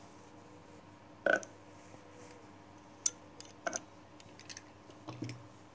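A few short clicks and knocks of a steel wheel pizza cutter and hands working on a wooden board while trimming a pastry. The loudest comes about a second in, then several smaller ones in the second half.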